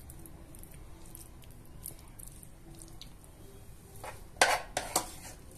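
A silicone spatula spreading moist shredded chicken filling in a glass baking dish, with faint soft squishing and small ticks, then two short, louder scraping sounds near the end.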